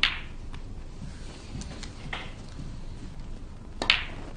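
Snooker balls clacking as shots are played: sharp clicks of cue tip on cue ball and balls striking each other, the loudest at the start and about four seconds in, with a medium click about two seconds in and fainter knocks between.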